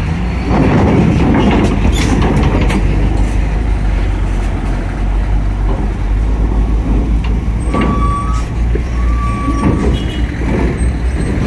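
Diesel cargo trucks driving off a ferry's loading ramp onto the steel dock grating: a steady heavy engine rumble with clunks and rattles in the first few seconds, and two short high squeals about eight and nine seconds in.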